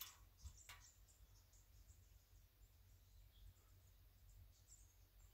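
Near silence: quiet rural outdoor ambience with faint, scattered high bird chirps and a couple of soft ticks in the first second.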